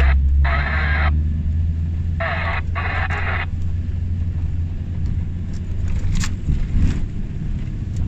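Car driving, a steady low rumble of engine and road noise, with three short higher-pitched bursts in the first few seconds.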